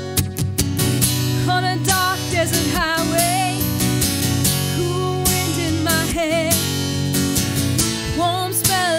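Acoustic guitar strumming chords, with a woman's singing voice coming in about one and a half seconds in, her held notes wavering with vibrato.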